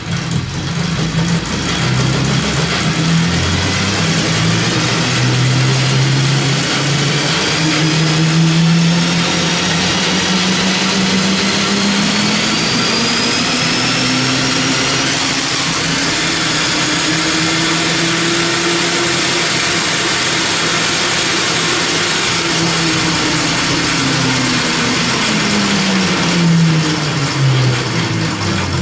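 Cordless DeWalt drill driving a home-made two-speed go-kart transmission in first gear, spinning the chain drive and the rear axle with the rear wheels turning free. A steady motor whine climbs slowly in pitch over most of the run, then winds down near the end.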